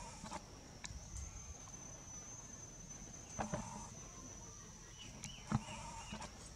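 Steady high-pitched insect drone, with a few sharp clicks or taps, the loudest about five and a half seconds in, and a few short faint chirps.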